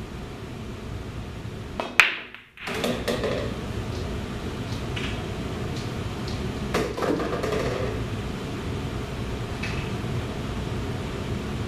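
Pool break shot: a sharp crack about two seconds in as the cue ball smashes into a racked set of nine balls, then the object balls clack against each other and the cushions as they scatter. More ball knocks follow a few seconds later.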